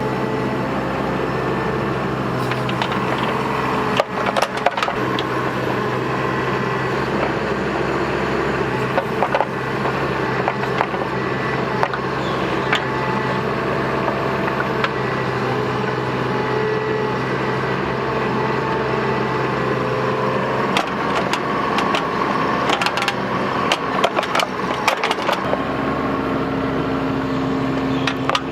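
Bobcat mini excavator's diesel engine running steadily under working load while it digs a trench, with sharp knocks and clanks from the machine at work, a few about four seconds in and a dense run of them near the end.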